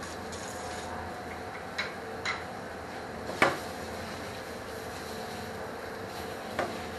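Shallots frying in a sauté pan, a steady sizzle under a constant kitchen hum, with four sharp knocks of a utensil on the pan; the loudest knock comes about three and a half seconds in.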